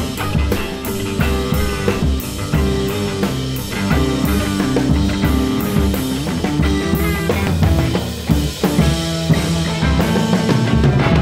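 Electric guitar through effects pedals and a drum kit playing loud, dense improvised rock, with frequent cymbal hits.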